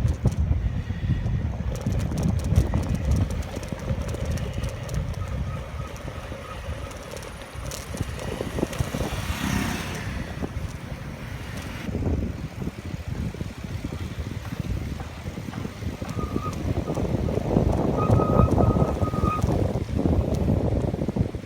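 Wind and road rumble on a camera microphone while riding a bicycle, with a louder rushing swell about nine seconds in and a few short beeps twice.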